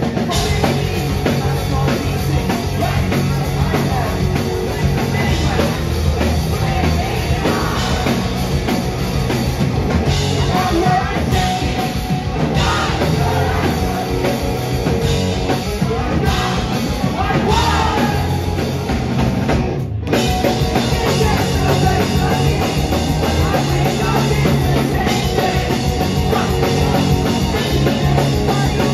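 Pop-punk band playing live at full volume: electric guitars, bass and drum kit with a lead vocal over them, heard from within the crowd. The sound drops out for a split second about 20 seconds in.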